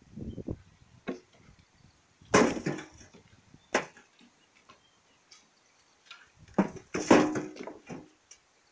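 Irregular knocks and thuds of dried-mud rubble being handled and cleared by hand, in about five separate bursts with short scraping between them; the loudest come about two and a half seconds in and shortly before the end.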